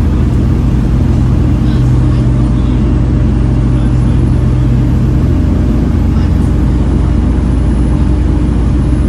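Volvo B7TL double-decker bus running on the road, heard from on board: a steady engine drone with a low hum whose strongest tone fades about five seconds in.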